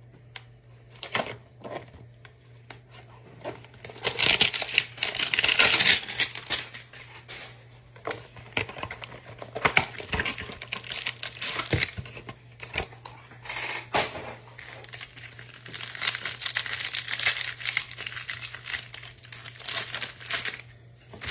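Plastic wrappers of trading-card packs crinkling and tearing as they are opened, in irregular bouts, loudest about four to six seconds in and again near the end.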